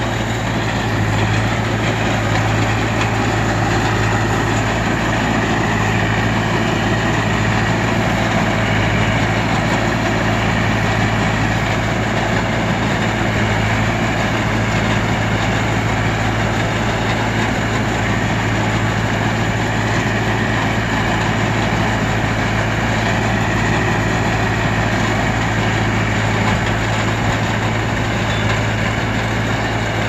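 Tractor diesel engine running steadily, with a low drone, while it drives a PTO-powered mini round baler that is picking up and rolling straw.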